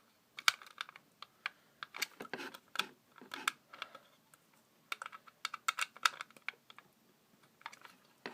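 Irregular light clicks and taps of a small screwdriver and wire working a terminal screw on a smoke alarm, as a loose wire is fastened back in.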